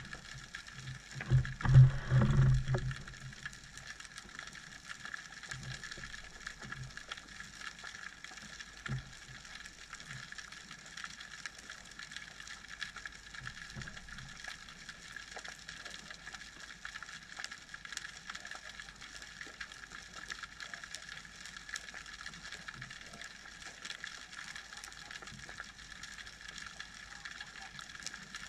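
Underwater ambience heard through the camera housing on a speargun: a continuous fine crackling of tiny clicks over a steady hiss, with a loud low rumble about two seconds in.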